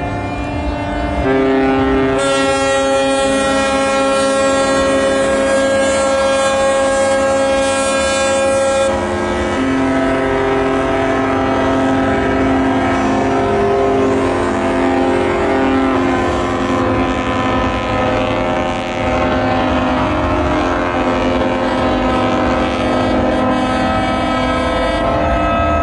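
Many ships' horns sounding together in long, overlapping blasts of different pitches, a horn salute marking the end of a fireworks display. The fullest, loudest chord is held from about two seconds in to about nine seconds, and other horns keep sounding after it.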